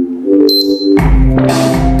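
Dance backing music: a melodic line, then about a second in a heavy beat with a deep bass drum comes in.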